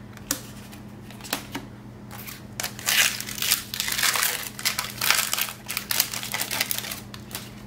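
Foil Magic: The Gathering booster pack wrapper crinkling and tearing as it is ripped open, after a few light clicks in the first two seconds.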